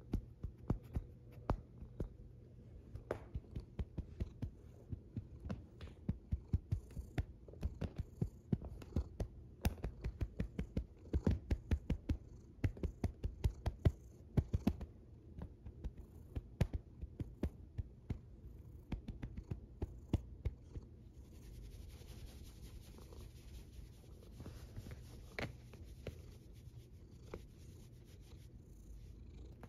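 Domestic cat purring close to the microphone, a low steady rumble, overlaid by frequent crackling rubs of fur against the microphone as the cat is stroked; the crackling stops about two-thirds of the way through, leaving the purr with a soft hiss.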